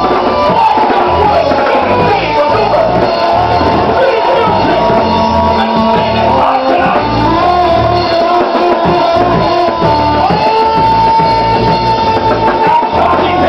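Loud rock music with a pulsing bass line and long held notes.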